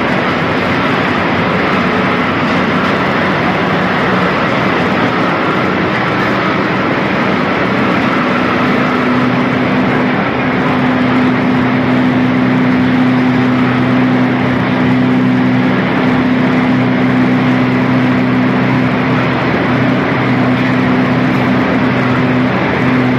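A motor running steadily, with a constant low hum that grows stronger about eight seconds in.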